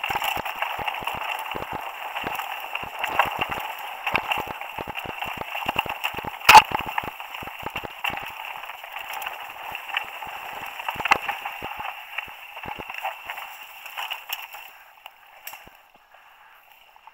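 Mountain bike riding down a dirt singletrack: a steady rush of tyre and wind noise with frequent clicks and rattles from the bike over bumps, and one loud knock about six and a half seconds in. The noise drops away near the end.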